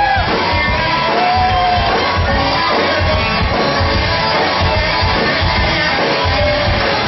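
Live band music with voices singing over a steady beat, and shouting from the audience.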